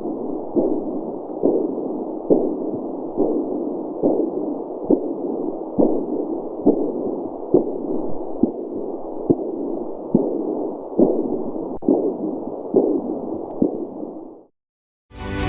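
Handheld fetal Doppler monitor's loudspeaker playing a pulse as a rhythmic whooshing beat, a little over one beat a second, over a steady muffled hiss. It cuts off suddenly near the end.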